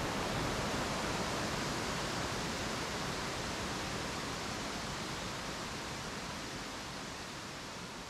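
Water rushing down a rocky cascading waterfall: a steady, even rushing hiss that slowly grows quieter.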